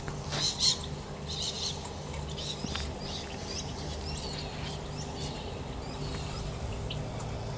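Short bird chirps and twitters, busiest in the first three seconds, over a steady low hum, with a couple of sharp clicks in the first second.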